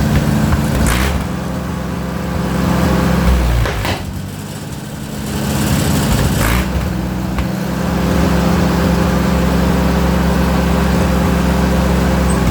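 Allis-Chalmers WD-45 tractor engine, rebuilt for tractor pulling, running at speed. Its note drops and quiets about four seconds in, then picks back up about two and a half seconds later, with a few sharp pops as the speed changes.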